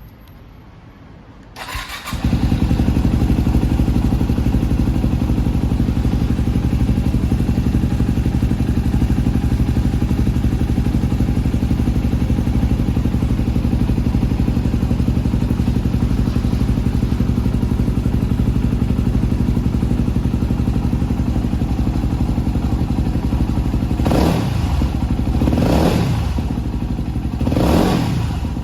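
Yamaha WR250X's 250 cc single-cylinder four-stroke engine, breathing through an FMF aftermarket silencer, starts about two seconds in and settles into a steady idle. Near the end the throttle is blipped three times, each rev rising and falling back to idle.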